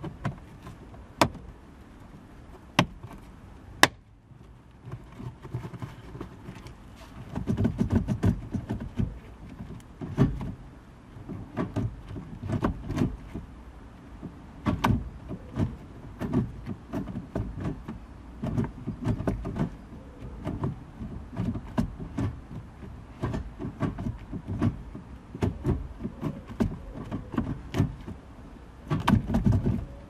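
Gloved hands working a gear knob and leather shift gaiter onto a manual gear lever. A few sharp clicks come in the first seconds as the gaiter's base is pressed into the console, then irregular rustling, bumping and clicking of leather and plastic, busiest near the end.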